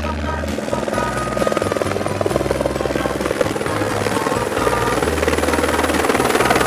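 Helicopter rotor sound effect, a fast steady chopping that grows stronger about a second in, over background music with a bass line and melody.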